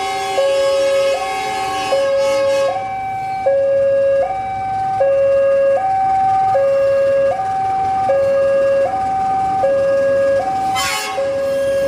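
Two-tone electronic warning alarm of a toy railway level crossing, alternating high and low tones about once every 0.8 s, signalling that a train is coming. A brief rushing noise joins it near the end.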